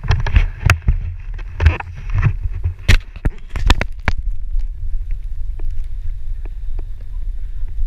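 Wind rumbling on an action camera's microphone, with a dense run of knocks and rustles from handling in the first four seconds or so, then scattered clicks.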